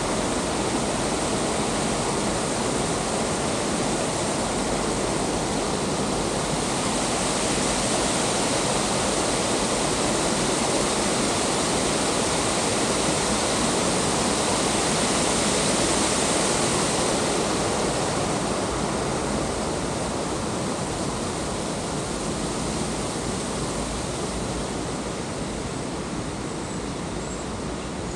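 Small artificial waterfall cascading over rocks into a garden pond: a steady rushing of water that swells around the middle and fades gently toward the end.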